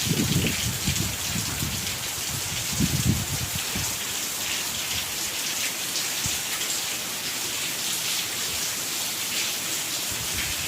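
Heavy rain falling steadily, a dense even hiss of drops. Uneven low rumbles come and go in the first few seconds.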